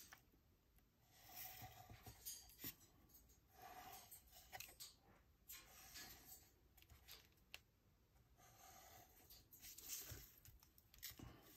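Faint hand-work on paper: a series of soft scratchy strokes, roughly one a second, with small clicks between, like paper being cut or drawn on.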